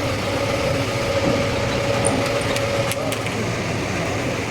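Steady machinery noise with a held mid-pitched tone that fades about three seconds in, and a few sharp clicks near the middle.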